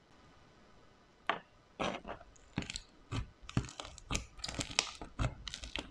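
Hands working slime: quiet at first, then from about a second in a quick, irregular run of sticky crackling pops and squishes.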